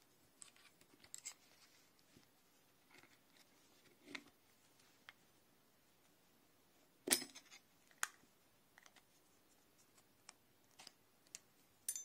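Steel double open-ended spanners being slid out of a plastic holder and set down on a towel: scattered light clicks and scrapes, with a sharper metal clink about seven seconds in and a short ringing clink near the end.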